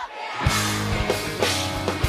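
Live rock band starting a song about half a second in, drum kit hits and electric guitar over a steady beat.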